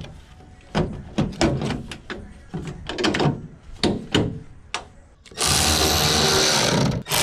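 Plastic taillight housing handled and pushed into place on a pickup, a run of sharp clicks and knocks. About five seconds in, a cordless electric ratchet starts running steadily, driving the housing's mounting bolt; it stops for an instant near the end and runs on.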